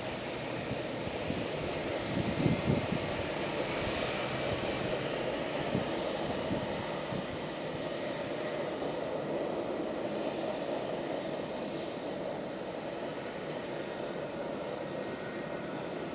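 Jet airliner engines running steadily at low power, a constant rumble and hiss with no spool-up. A few brief low thumps come about two to three seconds in.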